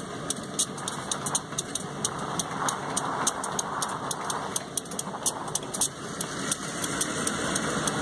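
Steady engine and running noise of vehicles on the move: a diesel locomotive rolling alongside a pacing car, its sound blended with the car's road noise. Frequent sharp clicks run through it, several a second.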